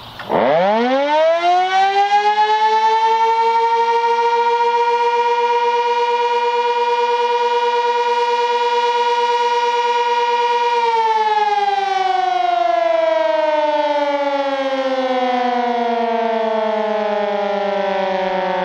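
Sentry 16V1T-B outdoor warning siren sounding a short alert: it winds quickly up to a steady tone within about three seconds, holds it, and from about eleven seconds in winds slowly down in pitch.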